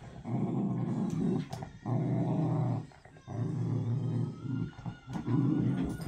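Dogs growling in play during a tug-of-war over a rope toy: low, rough growls in about four bouts of a second or so each, with short breaks between.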